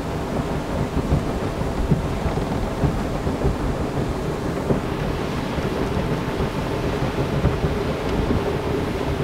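Boat running under way on a Mercury F200 four-stroke outboard: a loud, steady rumble of wind and water with frequent low thuds, and a faint engine tone that grows a little stronger about halfway through as the revs are set to 3000 rpm.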